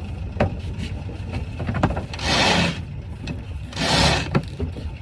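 Two rasping rubbing sounds, about a second and a half apart, with small knocks between them, as a sailboat's line is hauled through its fittings, over a steady low rumble.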